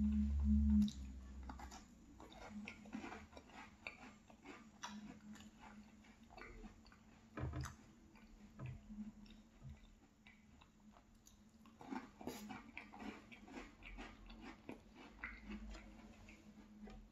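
Close-up chewing of small cookies dipped in yogurt: soft wet mouth clicks and smacks at an irregular pace. A loud low hum cuts off about a second in.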